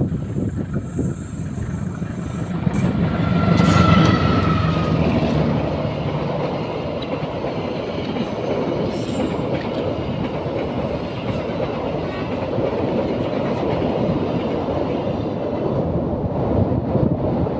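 A train passing close by, loudest about four seconds in, then a steady rumble as the cars keep rolling past.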